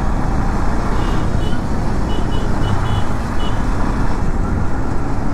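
Steady wind rush over an action-camera microphone mixed with the engine of a KTM Duke 250 single-cylinder motorcycle running at cruising speed in city traffic. A few faint short high beeps come through between about one and three and a half seconds in.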